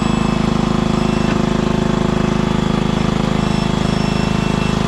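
Tractor engine running at a steady speed, with an even, unchanging note and a fast regular pulse.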